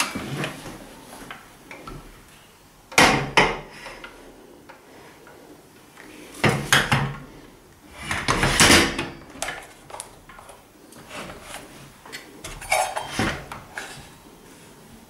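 Steel folding mitre saw stand, with a mitre saw bolted on, being lifted and unfolded: a series of metal clunks and rattles. There are sharp knocks about three seconds in, another pair around seven seconds, a longer clatter in the middle and more knocks near the end as the frame is raised.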